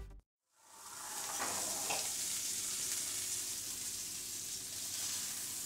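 Hanger steaks frying in foaming butter in a hot frying pan: a steady sizzle that fades in about half a second in.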